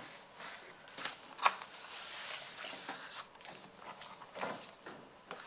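Sheets of paper being handled and shuffled: soft rustling with a few short, sharp taps, about a second in and again half a second later.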